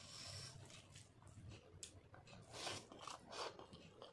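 Faint eating sounds by hand: fingers squishing rice mixed with fish curry on a plate, and a mouthful being chewed, with a few short, wet crackles, the loudest about two and a half and three and a half seconds in.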